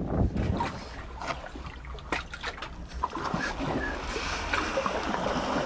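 Small waves lapping and trickling among the granite boulders of a harbour breakwater, with irregular small splashes and clicks.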